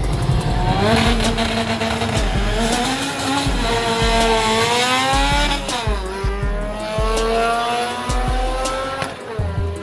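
Drag-racing cars' engines at full throttle, launching from the line and pulling down the strip. The engine note climbs steadily and drops back sharply three times as the gears change.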